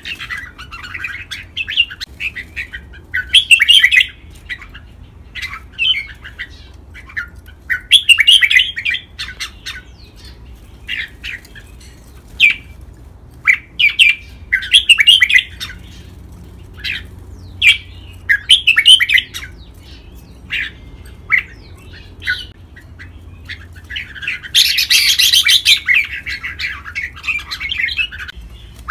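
Red-whiskered bulbuls singing: short, bright phrases of whistled notes every few seconds, with single chirps in between. The longest and loudest phrase comes near the end.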